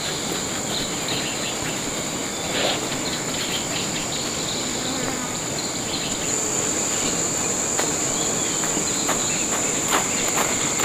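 Steady high-pitched insect chirring that grows louder about six seconds in, with a few faint clicks near the end.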